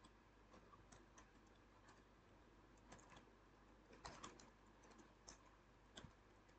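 Faint computer keyboard typing: scattered keystrokes, with a quick run of them about four seconds in.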